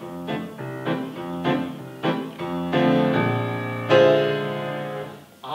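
Grand piano playing an instrumental interlude between sung verses of a show tune: a run of short, bouncy chords, then a louder chord about four seconds in that rings and fades away.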